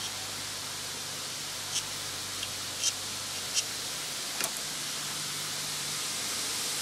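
Steady hiss of background noise with four light, sharp clicks spread over a few seconds as a rear brake caliper and its bracket are handled with a small tool.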